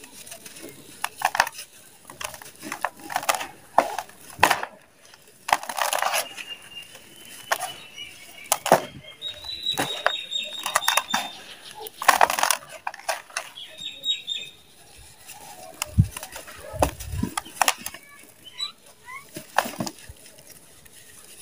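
Lumps of dry mud crunching and crumbling in bare hands, with gritty dirt sifting and pouring into a plastic tub. The crunches come irregularly, with a couple of longer rushing pours of about a second and a few soft low thuds near the end.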